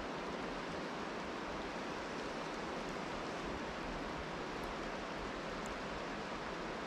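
Steady, even rushing noise of rain falling and a river running over rocky rapids.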